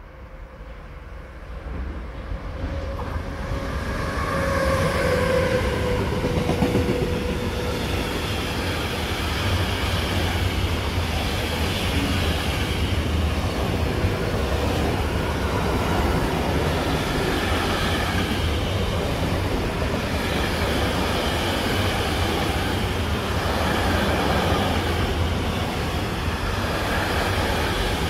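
A train approaching and running past on the track, its noise building over the first few seconds and then holding loud and steady as the cars go by. About four seconds in there is a faint whine lasting a few seconds.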